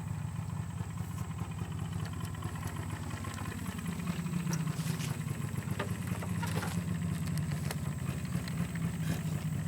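A small engine running steadily, its note shifting slightly about four seconds in.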